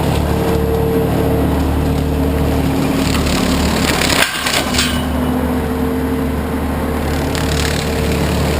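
Skid steer engine running steadily under load while driving a brush mower attachment through weeds, with a short, sharp burst of noise about halfway through.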